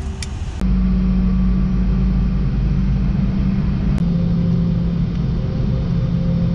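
Boeing 717-200 cabin noise on the ground, heard from a window seat: the rear-mounted Rolls-Royce BR715 turbofans give a steady rumble with a constant low hum as the aircraft taxis. The sound starts abruptly just over half a second in.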